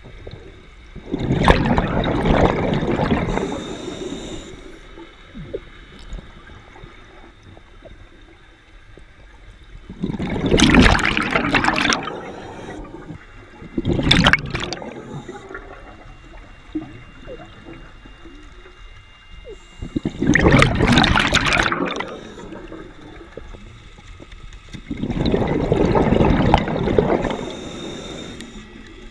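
Scuba diver's exhaled breath bubbling out of the regulator underwater, in five loud bursts each one to three seconds long, a few seconds apart, with a faint hiss in between.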